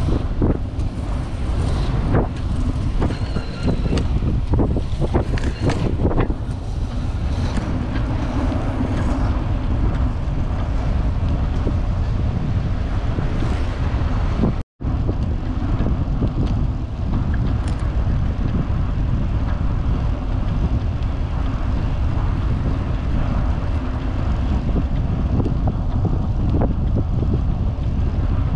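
Wind buffeting the microphone of a handlebar-mounted action camera on a moving road bicycle: a heavy, steady rumble. During the first few seconds there are clicks and knocks from the bike over the trail surface. The sound cuts out completely for an instant about halfway through.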